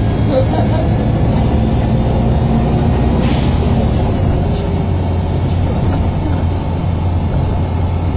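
Cabin sound of a MAN 18.220LF single-deck bus under way: the diesel engine runs with a steady drone, mixed with road noise, heard from inside the bus. There is a brief hiss about three seconds in.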